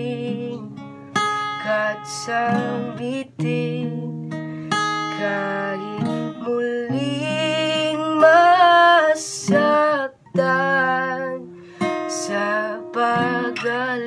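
A young man singing while accompanying himself on an acoustic guitar.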